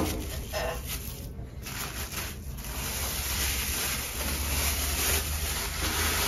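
Electric mixer running steadily, whipping chantilly cream to stiff peaks, with a steady hiss and low hum from about three seconds in. A few short kitchen knocks come just before it.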